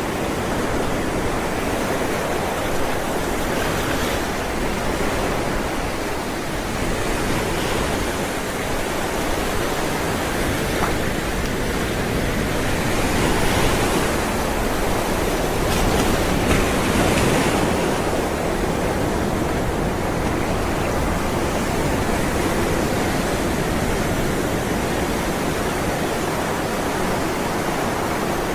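Ocean waves rolling onto a shore: a continuous wash of surf with a few louder surges of breaking water, the strongest about halfway through.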